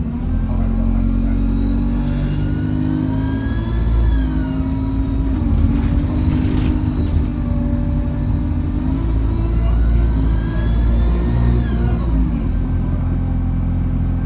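ADL Enviro200 single-deck bus's diesel engine pulling under acceleration, heard on board. Its turbocharger whine rises in pitch and then falls away twice over a steady low engine drone.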